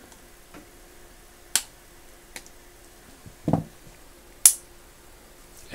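Steel snap ring being worked into the retaining groove of a Proto 5449XLQR ratchet head with snap ring pliers and fingers: four short, sharp metallic clicks about a second apart, the loudest near the end as the ring goes in.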